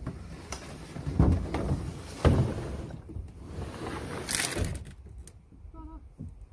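Rotomolded plastic hull of a Hobie Pro Angler 14 fishing kayak sliding and scraping over a pickup's tailgate and ribbed bed liner as it is pushed into the bed, with two heavy thumps about a second and two seconds in and a hissing scrape near the middle.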